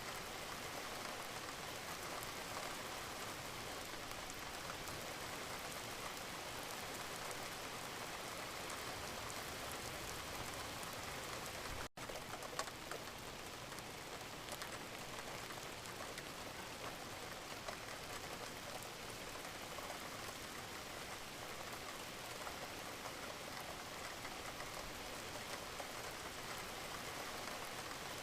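Steady rain falling on a surface, a dense even patter of raindrops. It cuts out for an instant about twelve seconds in.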